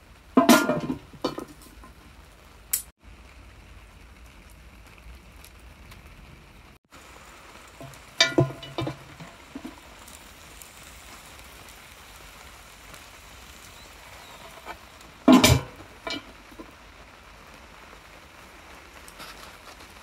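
Cast-iron Dutch oven lid, loaded with glowing charcoal briquettes, clanking against the pot as it is handled and set in place. There are three loud metallic clanks with a short ring, about half a second, eight seconds and fifteen seconds in, over a steady low hiss.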